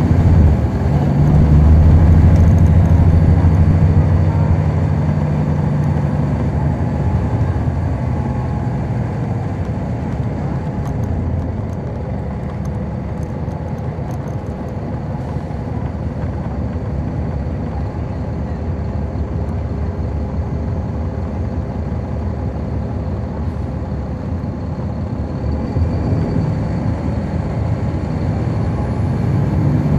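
On-board sound of a NABI 40-foot transit bus's Caterpillar C13 ACERT diesel engine running. It is loud at first, eases to a quieter run with road noise about four seconds in, and grows louder again near the end.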